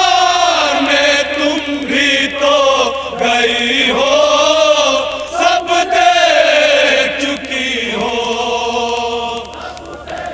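A group of men chanting a noha, an Urdu mourning lament, in loud drawn-out melodic lines with wavering pitch. The chant fades near the end.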